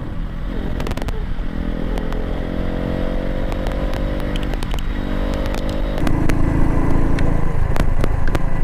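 Motorcycle engine running under way, its note climbing slowly and then louder from about six seconds in, with a few sharp clicks over the steady rumble.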